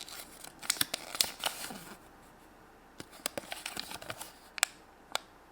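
Hands handling small plastic toy-egg packaging and a paper flyer: a run of small clicks and rustles, a pause, more light clicks, then two sharper clicks near the end.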